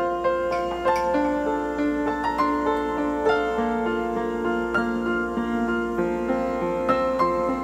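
Background music: a slow, gentle piano melody with notes sounding one after another over held chords.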